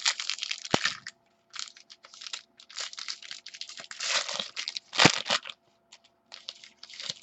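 Trading card pack wrappers being torn open and crinkled by hand, in irregular bursts of crackling, with two sharp taps, about a second in and about five seconds in.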